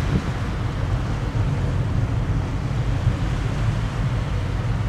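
Wind buffeting the microphone in a steady low rumble, over the wash of choppy river water.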